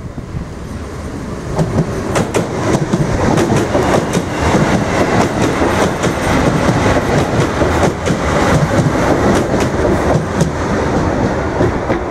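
Irish Rail 8520 class DART electric multiple unit passing close by, its wheels clattering on the rails with many sharp clicks. The noise swells about a second and a half in, holds steady while the carriages go by, and starts to fade near the end.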